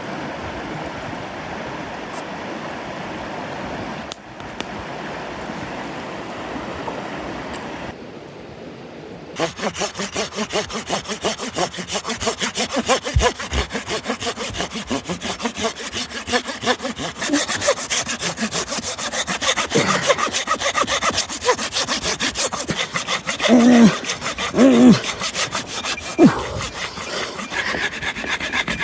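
Steady rushing noise for the first nine seconds or so, then a hand saw cutting firewood with rapid, even back-and-forth strokes.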